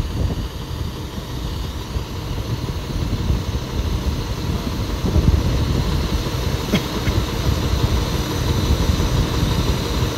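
Low, steady rumble of vehicle engines idling, with one brief sharp sound about two-thirds of the way through.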